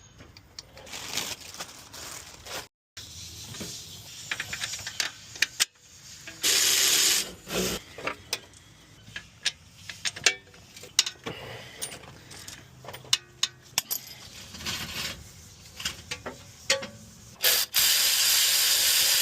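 Hand tools working on a car's wheel hub assembly: ratchet clicking and scattered metal clinks and knocks. Twice the work is broken by a loud, steady rushing noise, once about a second long and near the end about two seconds long.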